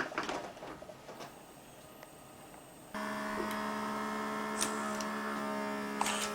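Small electric motor and plastic gearing of a fischertechnik model: a few clicks and rattles, then about three seconds in a motor starts and runs with a steady whine, with an occasional sharp click.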